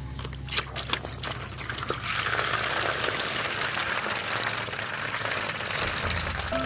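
A couple of sharp clicks, then water pouring or running in a steady rush for several seconds.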